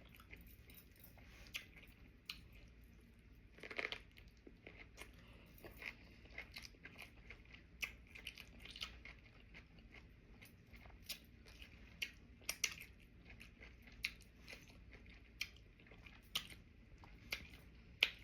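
A person chewing sushi close to the microphone: soft, irregular wet mouth clicks and smacks, a few louder ones here and there.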